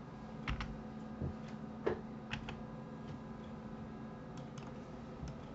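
Computer keyboard and mouse clicks, about ten single clicks spread irregularly, over a faint steady hum.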